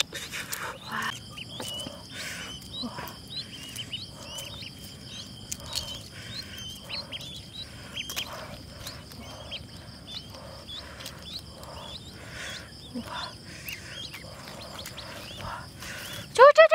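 Steady high-pitched trilling with short repeated chirps and scattered light clicks. About half a second before the end, a loud animal call starts that rises and falls in pitch.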